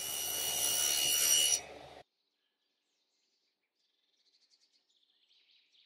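Table saw ripping a pine tongue-and-groove board: a steady whine over the noise of the cut, growing louder, then stopping abruptly about a second and a half in. Near silence follows, with faint high chirps.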